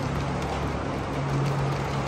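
Gauge 1 model freight train running along the layout's track: a steady rolling rumble with a low hum.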